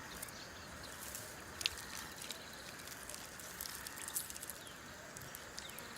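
Faint outdoor ambience: a steady soft hiss with scattered light clicks and rustles.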